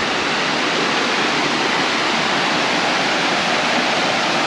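Cascading mountain waterfall: a loud, steady rush of water pouring down over rock.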